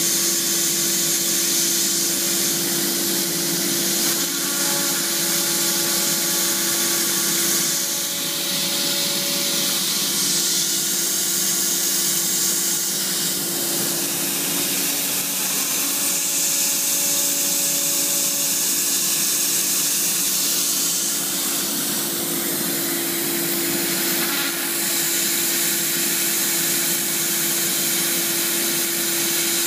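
A CNC router's 12 HP HSD spindle runs while its bit cuts HDPE marine board. It makes a steady hum under a strong hiss, and the sound shifts every few seconds as the cut changes.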